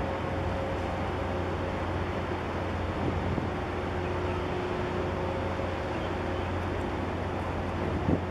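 Steady low drone and hum of the 400-metre container ship HMM Stockholm passing close by under way, mixed with wind noise on the microphone. A brief knock sounds near the end.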